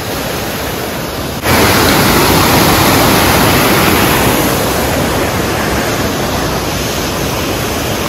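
Kiwai waterfall's water crashing down at high pressure, a steady rushing noise. It grows suddenly louder about a second and a half in, then eases slightly.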